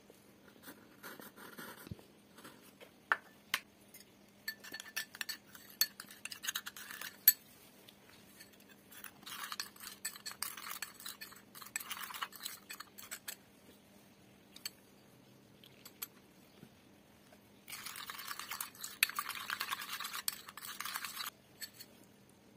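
Metal spoon clinking and scraping against a small glass bowl while stirring a powder mix: scattered light clinks at first, then two spells of quick scraping strokes, about nine and eighteen seconds in.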